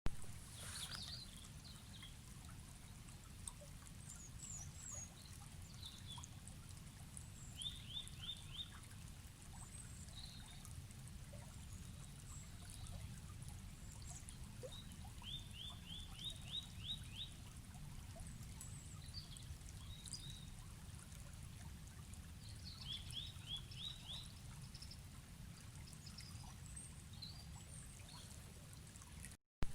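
A river running steadily, with small birds calling over it: three short songs of quick descending notes and scattered high chirps. Near the end the sound briefly cuts out with a click.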